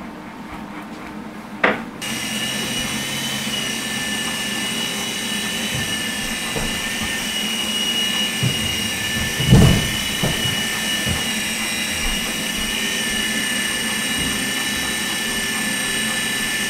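Auldey SkyRover Navigator toy RC helicopter's electric rotor motors whining steadily in flight, several high tones held at an even pitch, starting sharply about two seconds in after a short click. A low thump about halfway through.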